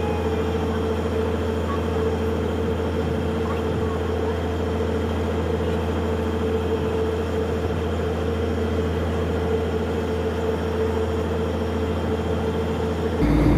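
Fishing trawler's inboard diesel engine running steadily under way, an even low drone with a constant hum above it. The sound changes abruptly just before the end.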